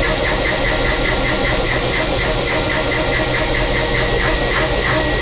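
CNC vertical machining centre milling a Z-level finishing pass. It gives a steady high spindle whine over a rapid, even pulsing of the cutter, about six beats a second.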